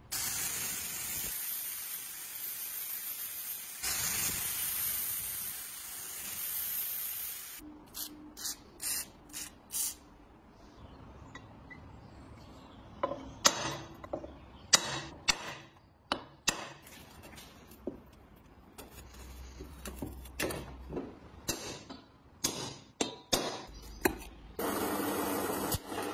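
A steady hiss for several seconds, then irregular sharp clicks and taps of a pointed metal tool worked into a hole in a cast-iron stove grate, and near the end an electric drill boring into the cast iron.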